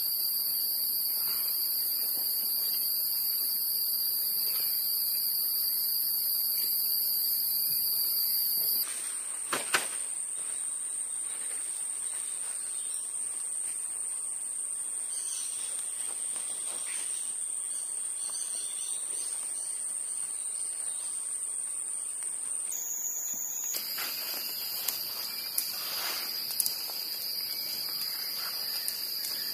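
Forest insect chorus shrilling steadily in high continuous tones. The pitch of the chorus shifts abruptly twice, about nine seconds in and again around twenty-three seconds. A few faint knocks come near the end.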